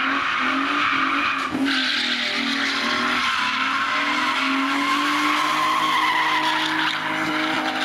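Vauxhall Omega saloon drifting on concrete: its tyres squeal continuously while the engine is held at steady high revs.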